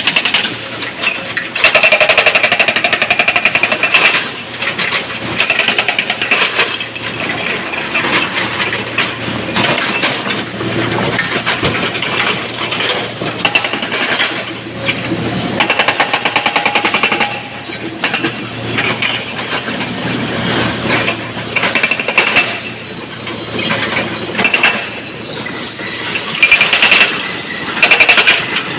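Excavator loading broken stone into a dump truck: rocks clattering and crashing against steel, with the machine running underneath, loud in stretches.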